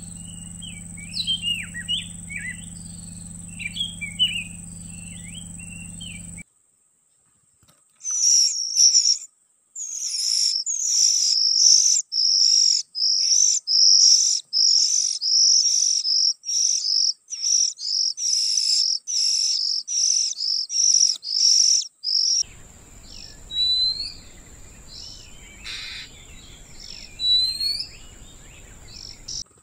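Oriental magpie-robins (kacer) calling as a parent feeds its chicks: first a scatter of short chirps over a low hum, then after a brief silence a long run of rapid, evenly repeated high calls, then occasional rising calls near the end.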